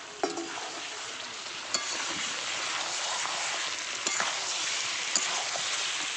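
Spiced mutton and potatoes sizzling as they fry in a metal kadai, with a steady hiss. A spatula stirring the pot knocks sharply against the pan about four times.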